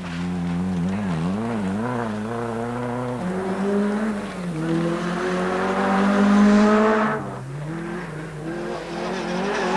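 Rally car engine at high revs on a gravel stage. Its note wavers up and down for the first three seconds, then climbs steadily, drops sharply about seven seconds in, and climbs again.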